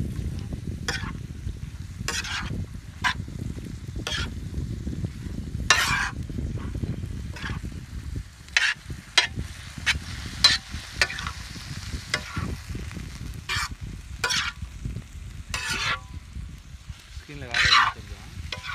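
Steel spoon scraping and stirring raw chicken pieces with onion on a large iron tawa, the meat sizzling as it starts to fry. Sharp metal scrapes come irregularly, about once a second, over the steady sizzle.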